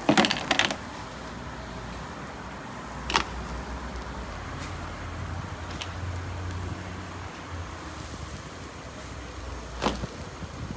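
Metal kebab skewers clattering as a bunch of grilled kebabs is set down on a plastic tray: a quick run of clinks at the start, then single knocks about three seconds in and near the end. A steady low hum runs underneath.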